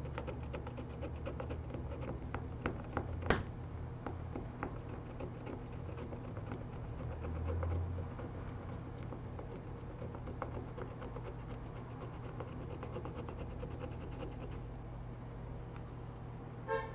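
Fine scratching and ticking from a small hand tool working on the phone, with a sharp click about three seconds in, over a steady low hum. A short beep sounds near the end.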